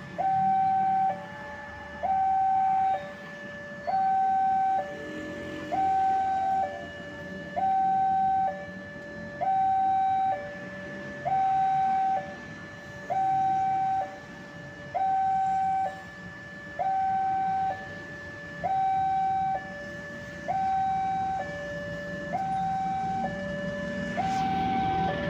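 Electronic two-tone railway warning alarm, switching between a higher and a lower tone about a second each in a steady repeating pattern, signalling an approaching train. Near the end the rumble of the arriving diesel-hauled train rises underneath it.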